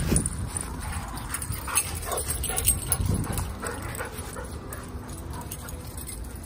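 A group of dogs playing together, with a few short whines and yips.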